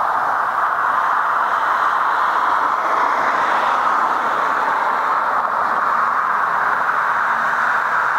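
Steady, even rushing noise, unchanging throughout, with no distinct calls or knocks standing out.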